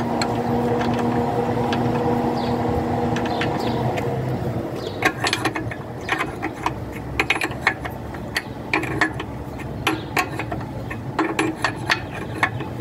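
A ratchet wrench clicks in short, irregular runs as it tightens a hydraulic hose fitting on a mini excavator's boom. A steady hum of level tones runs through the first four seconds and then fades.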